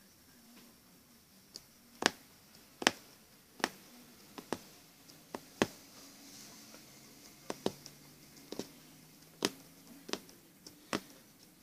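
Punch needle repeatedly piercing fabric held taut in an embroidery hoop, making sharp clicks at an uneven pace of about one or two a second.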